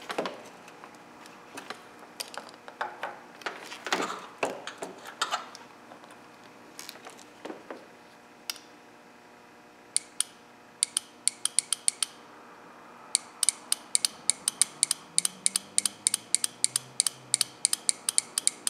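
New MAP/BARO switch solenoid from a 1999 Nissan Maxima clicking as power is tapped on and off with a power probe: a single sharp click about ten seconds in, then rapid runs of clicks at about four or five a second. This is the normal clicking of a good solenoid. Before that come scattered light knocks and rattles of the clip leads being handled.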